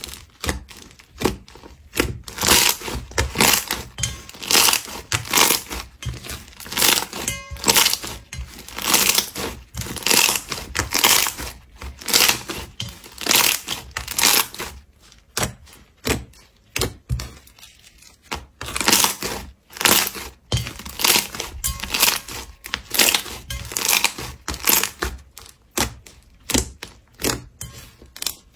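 Slime being mixed and squeezed by hand, giving repeated crackling, crunchy bursts.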